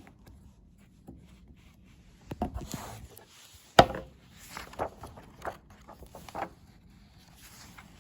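Handling of a book: paper rustling and soft knocks as pages are turned, with one sharp knock just under four seconds in.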